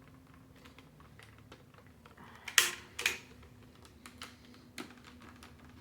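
Small plastic clicks and rattles from the housing of a Dyson cordless vacuum as a tab is pushed and a part worked to slide it out, with two louder sharp clacks about two and a half and three seconds in.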